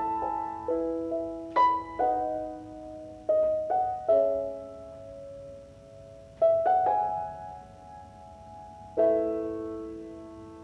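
Background music: slow, gentle piano, single notes and soft chords that ring out and fade.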